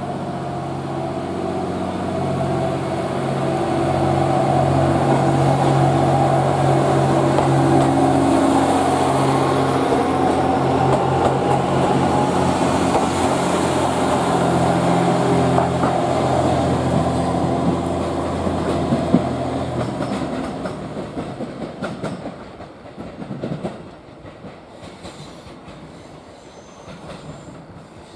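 JR East GV-E400 series diesel-electric railcar running along the platform track: a steady engine and motor hum with wheel clatter on the rails. The sound dies away about twenty seconds in.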